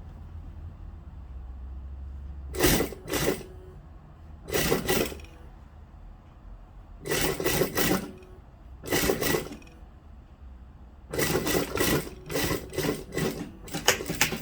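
Domestic sewing machine stitching a hem in short stop-start bursts, each about a second or less, with a low motor hum in the first couple of seconds.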